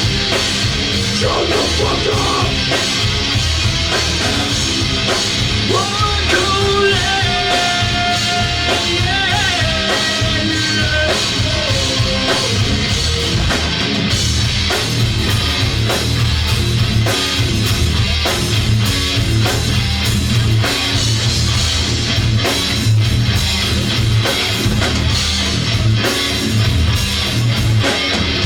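A live rock band playing a song on electric guitar, bass and drum kit, with a sung vocal line over the first part.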